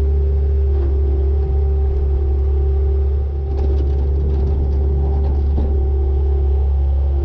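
A vehicle engine running steadily, with a deep, constant low rumble and a steady hum.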